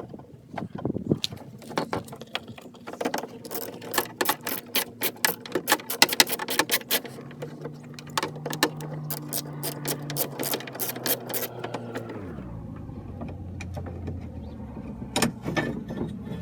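Rapid clicking and rattling of metal and plastic parts being worked inside a car door's handle and lock mechanism. A steady low hum joins partway through, drops in pitch about three quarters of the way in, and fades out.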